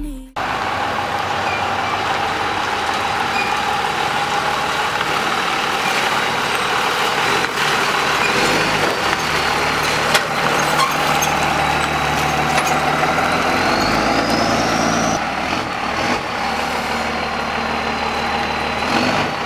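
Pickup truck engine running at low speed as it tows a loaded car trailer and manoeuvres it into place, a steady engine sound with road and tyre noise.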